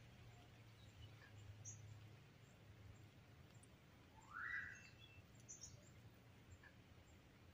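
Very quiet background with a low hum and faint, short high chirps of small birds every second or two, and one brief rising squeak about four seconds in.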